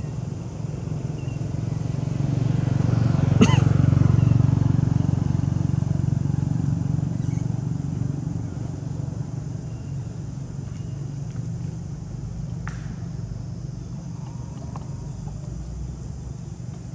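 A motor vehicle passing, its low engine rumble swelling to a peak about four seconds in and then slowly fading, with a short sharp sound near the peak.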